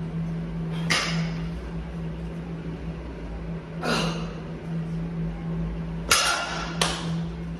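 A barbell loaded with weight plates is set down on the floor after a heavy deadlift, making two sharp knocks close together near the end.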